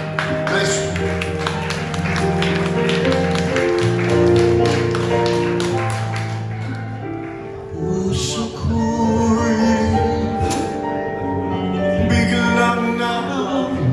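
Live music: held keyboard chords with a run of quick taps over roughly the first half. A man's voice singing into a microphone comes in during the last few seconds.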